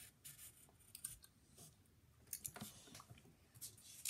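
Faint pencil strokes on paper: a few short, scratchy strokes with pauses between them.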